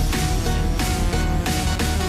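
Electronic background music with a steady beat, heavy bass and sustained synth notes.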